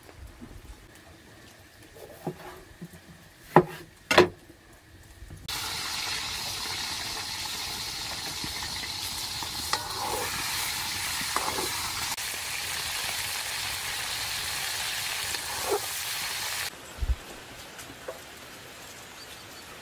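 Food sizzling loudly and steadily in a black pan over an open wood fire, starting suddenly about five seconds in and cutting off about eleven seconds later. Two sharp knocks come shortly before the sizzling starts.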